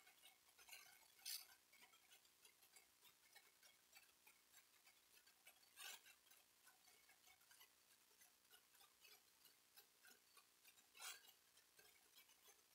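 Near silence with faint, rapid, even ticking and three louder clicks, about a second, six seconds and eleven seconds in.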